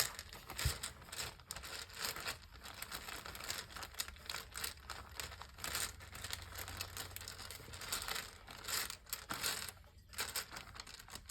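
Hands rummaging through a pile of small slime charms: irregular crinkling and rustling with light clicks.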